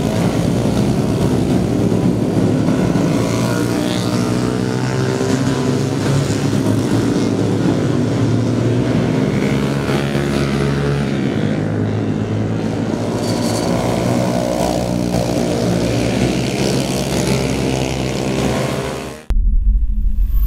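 Many motorcycle and scooter engines running and revving together as riders pass through a corner, a dense, continuous engine drone. Near the end it cuts off abruptly and a deep music sting begins.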